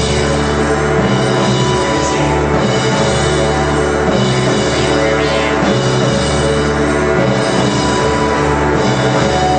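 Live psychedelic art-rock band playing loud: sustained distorted guitar and bass with drums, a dense steady wall of sound.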